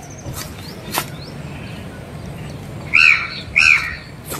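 A bird calling twice near the end: two loud calls about half a second apart, each rising and then falling in pitch.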